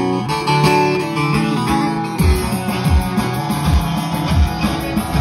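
Live Turkish folk music: a bağlama (long-necked saz) playing a plucked instrumental intro, joined about two seconds in by a steady low drum beat.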